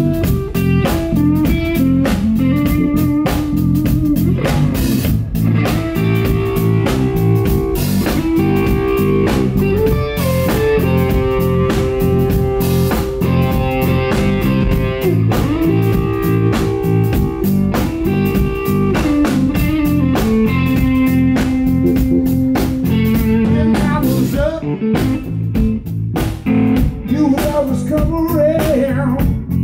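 Live blues band playing, led by a Telecaster-style electric guitar whose long held notes bend up and down over a drum kit.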